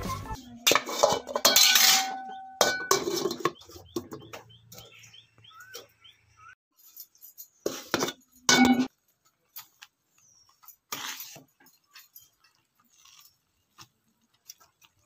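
Metal cookware clinking and clanking: an aluminium lid knocked against and lifted off a steel kadai with a pair of pliers, and a steel ladle scraping the pan. The loudest clangs come about one to two seconds in and again around eight to nine seconds, with sparse lighter clinks between.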